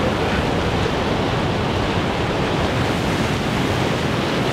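Ocean surf breaking and washing over shoreline rocks, a steady, loud rush of water.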